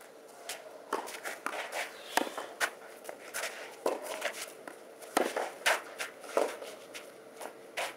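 Tennis rally on a clay court: sharp pops of the ball off the rackets and its bounces, mixed with the quick steps and scuffs of tennis shoes on the clay. The loudest knocks come about two and five to six seconds in.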